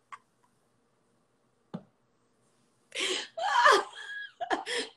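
Women laughing over a video call, in short broken bursts. The sound cuts out to dead silence for about two seconds near the start, then the laughter comes back louder: the live stream's audio is dropping.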